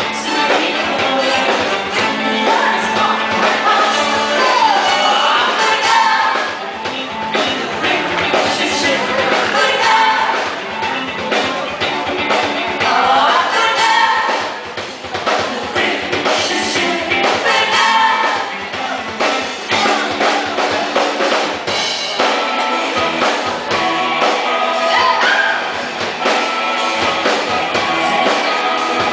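Live band playing a song with a woman singing lead into a microphone, over drum kit and percussion.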